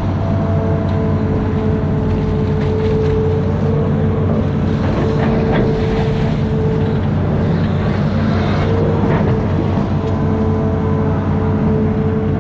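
Amphibious excavator's diesel engine running steadily, with a steady whine over it that drops out briefly now and then, and a few faint knocks.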